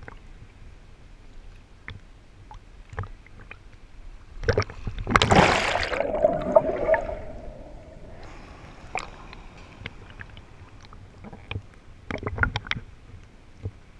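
Seawater sloshing and splashing against a camera at the surface of the ocean. About four and a half seconds in comes a loud rush of water as a wave breaks over and the camera goes under, trailing off into bubbling, and a quick cluster of splashes follows near the end.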